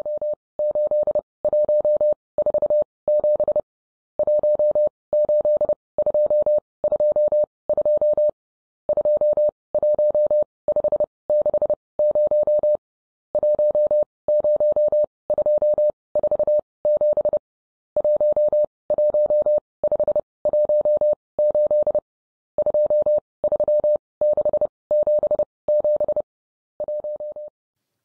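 Morse code as an electronic beep tone: one steady mid-pitched note keyed on and off in short and long beeps, with longer pauses between groups every few seconds.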